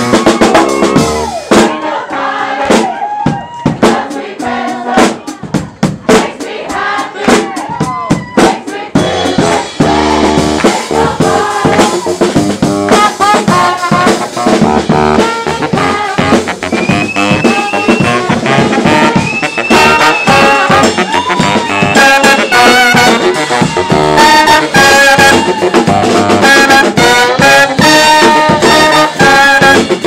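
Brass band playing a lively tune over drums, with baritone saxophone and trumpet among the horns. The band gets fuller and louder about nine seconds in.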